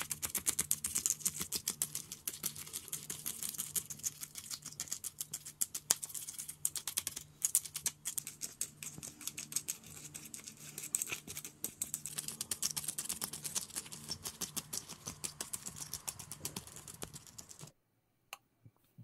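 Coffee beans clicking and rattling against one another as a wooden spoon pushes them around in epoxy resin: a dense run of quick clicks over a faint low hum, stopping abruptly near the end.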